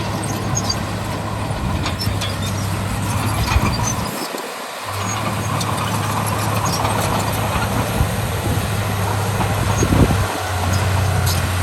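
Heavy earthmoving machinery's diesel engine running steadily, with scattered metallic clanks and clicks. The low engine hum drops out for about a second about four seconds in, then returns.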